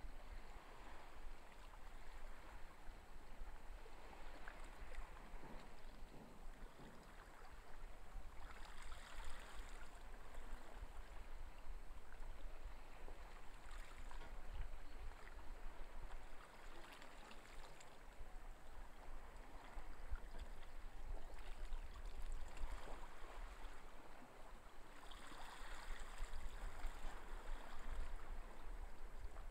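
Steady seaside ambience: an even rush of water over a low rumble, swelling briefly about nine seconds in and again near the end.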